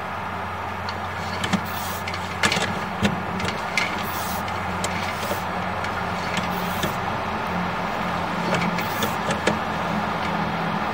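Steady low machine hum, with scattered clicks and several short scraping hisses as a sewer inspection camera's push cable is fed along the pipe.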